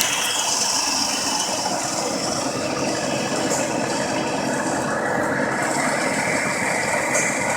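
A machine running steadily.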